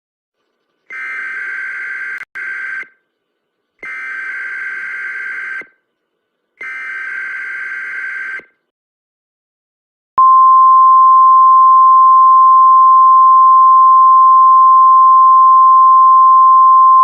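Emergency Alert System SAME header: three bursts of screechy digital data tones, each about two seconds long and about a second apart. About ten seconds in, a long, loud attention tone at a single steady pitch begins.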